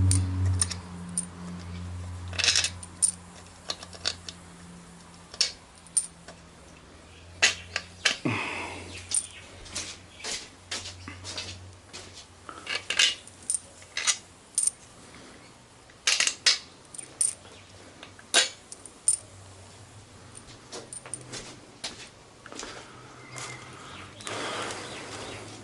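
Metal tools and engine parts clinking and clattering by hand: a long run of sharp metallic clicks and knocks, some ringing briefly, spaced irregularly.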